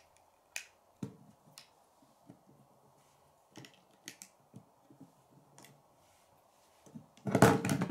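Plastic Lego bricks clicking and snapping as pieces are pressed onto a brick-built figure: scattered sharp clicks, with a louder run of clattering near the end.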